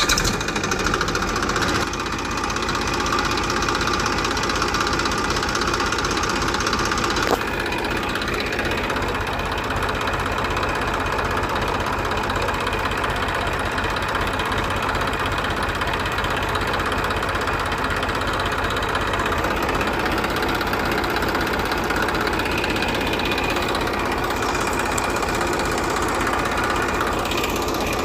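Small engine of a DIY mini tractor running steadily, with a fast, even firing beat. There is a click about seven seconds in, after which it runs slightly quieter.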